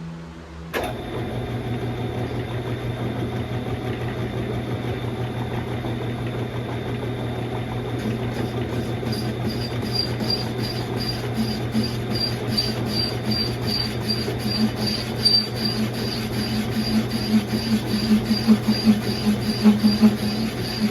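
Metal lathe starting up about a second in and running with a steady hum, turning a brake drum. From about eight seconds in the cutting tool is opening up the drum's centre hole, adding a rhythmic pulsing scrape a few times a second that grows louder toward the end.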